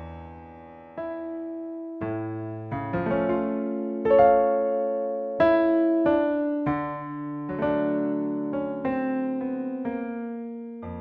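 Slow solo piano music: single notes and chords struck about once a second and left to ring out.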